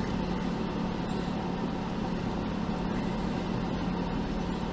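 Jeep engine running steadily, a constant low hum with no change in pitch.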